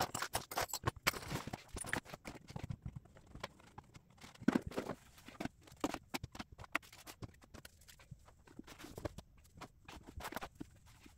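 Many irregular light knocks and taps of things being handled and set down on a cube shelf unit: a fabric storage basket being fitted into a cubby and books and hard cases being placed on the shelves. One louder knock comes about halfway through.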